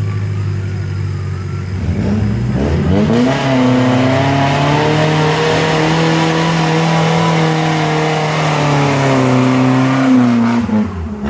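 Suzuki Jimny engine idling low, then revving up about two seconds in and held at high revs as the 4x4 climbs an off-road obstacle, easing off near the end.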